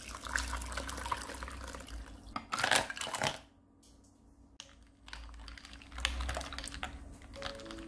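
Water pouring into a ceramic bowl of sliced vegetables, with a burst of clattering about two and a half seconds in; after a short quiet gap, ice and a utensil clink in the bowl as the cold soup is stirred. Soft music begins just before the end.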